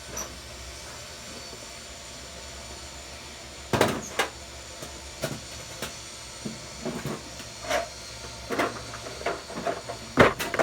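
A steady hiss for the first few seconds. Then, from about four seconds in, a run of irregular knocks and clunks as things are handled and set down, the loudest near the end.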